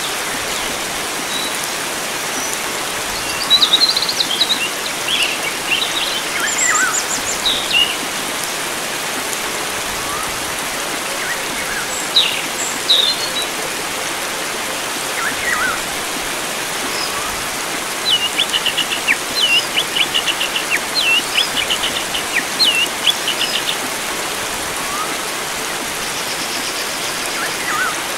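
Wild birds calling and singing over the steady rush of flowing water. In the second half, a bird gives a fast run of repeated notes.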